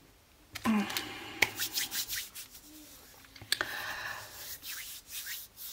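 Sheets of craft paper and card being handled: rustling and rubbing, with a few sharp crackles.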